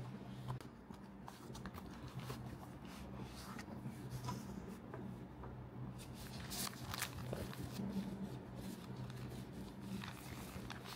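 Frosted plastic packaging sleeve rustling and crinkling as gloved hands handle and unwrap it, in irregular crinkles with a few louder ones about six to seven seconds in. A steady low hum runs underneath.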